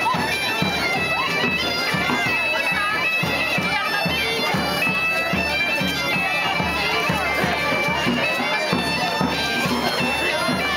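Folk dance tune played on bagpipes over a steady drum beat, with crowd voices underneath.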